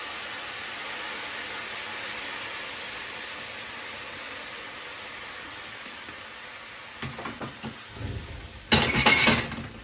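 Morels sizzling in a hot frying pan as cognac is poured over them, a steady hiss that slowly fades. A few knocks come about seven seconds in, then the cognac catches fire with a low rush followed by a loud burst near the end.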